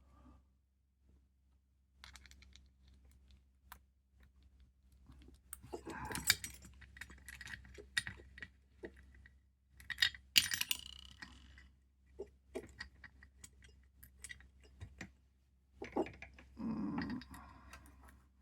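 Small metal lock-picking tools and parts clicking and rattling as they are handled, in scattered clicks with louder clusters about six, ten and seventeen seconds in.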